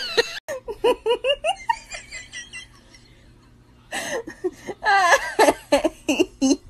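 A person laughing in short, quick giggling bursts. The laughter stops about two and a half seconds in and starts again about a second and a half later.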